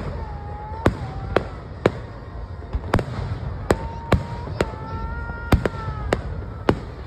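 Aerial firework shells bursting, about a dozen sharp bangs in quick, irregular succession.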